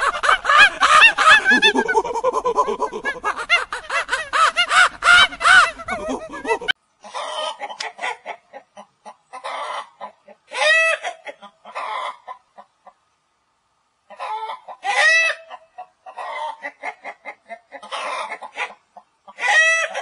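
Monkeys giving dense, shrill, pitch-bending calls, which stop suddenly about seven seconds in. Then chickens cluck in short bursts, with a few louder, drawn-out squawks.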